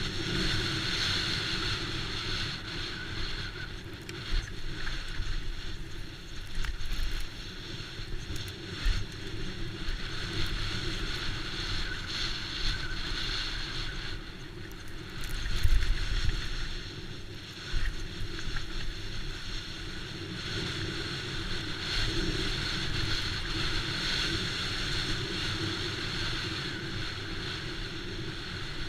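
Wind rushing over the microphone and tyre noise from a Trek Slash mountain bike riding a trail, with occasional short thumps and rattles over bumps.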